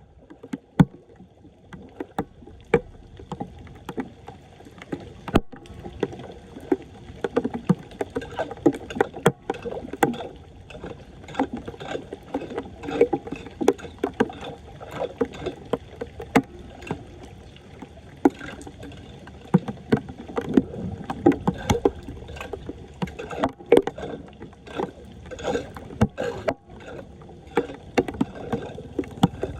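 Splashing and sloshing in shallow floodwater as a clogged street drain is being cleared, with frequent irregular sharp knocks and clicks throughout.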